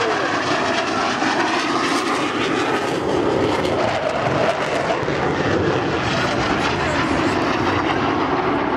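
F-4 Phantom jet making a pass, its twin J79 turbojet engines a loud, steady roar.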